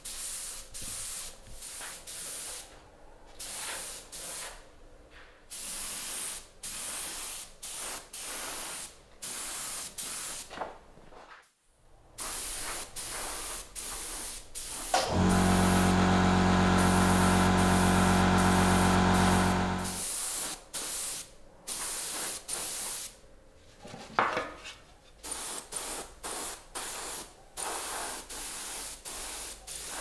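Spray hissing in repeated short bursts, each a second or so long. About halfway through, a motor runs loudly and steadily for about five seconds, then stops.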